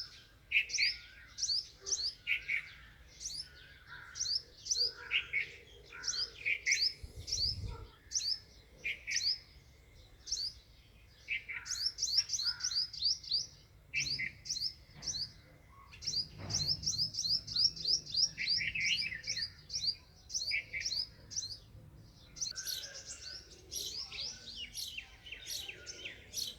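House sparrows chirping: short, high chirps repeated over and over, at times in quick runs.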